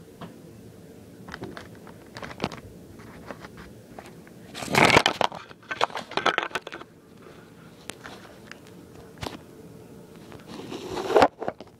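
Rustling, crinkling and scattered knocks and creaks of a baby climbing out of her crib, with a louder scuffle about five seconds in and another near the end.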